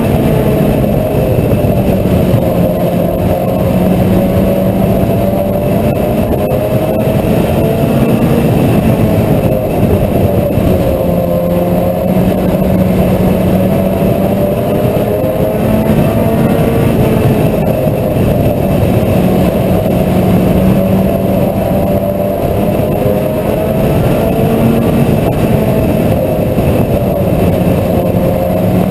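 Mini stock race car engine running hard at racing speed. Its pitch repeatedly rises and falls as the car accelerates and lifts around the oval, with no break in the sound.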